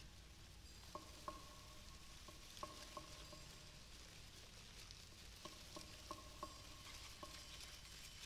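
Near silence: a faint crackling hiss, with a few soft, short pitched blips scattered through it.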